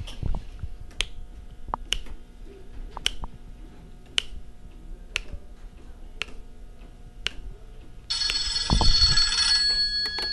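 Sharp single clicks about once a second, then about eight seconds in a telephone starts ringing loudly for about a second and a half, with a low thud during the ring.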